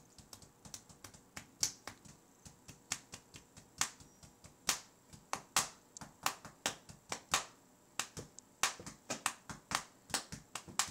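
Irregular sharp clicks, a few a second, some louder than others.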